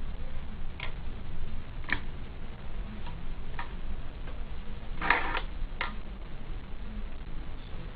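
Hand-pressed bag sealer being worked: about six sharp clicks and knocks at uneven intervals, with a louder clatter about five seconds in, over a steady low hum.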